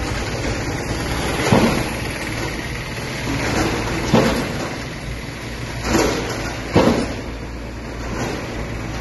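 Heavy excavator engines running with a steady rumble, broken by four sudden crashes, the first about a second and a half in and two close together near the three-quarter mark, as the machines strike the concrete structure in demolition.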